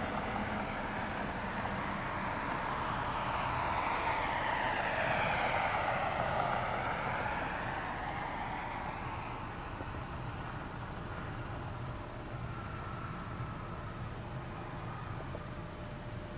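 Jet airliner passing close by, its engine noise swelling to a peak about five or six seconds in and then fading away, with a sweeping rise and fall in tone as it goes past.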